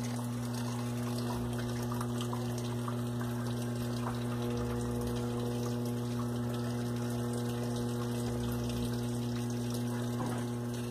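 Washing machine drain pump running with a steady electric hum while water rushes through it.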